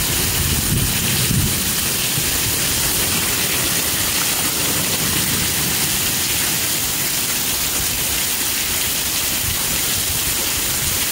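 Heavy rain pouring down in a thunderstorm downpour: a steady, dense hiss of rain on grass and pavement.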